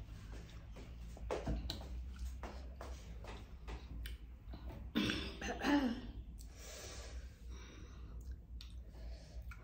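Heavy breathing and puffs of air blown out through pursed lips, mixed with mouth and chewing clicks, as a woman reacts to a burning mouth from chili-hot noodles. A brief vocal sound comes about five seconds in, followed by a long breathy exhale.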